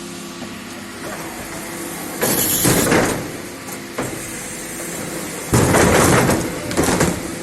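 Garbage truck running steadily, broken by two loud clattering crashes of waste collection: a short one about two seconds in and a longer one about five and a half seconds in.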